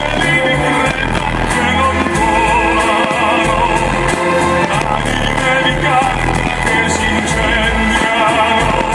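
Show music with a singer's voice carrying a wavering melody, loud and continuous.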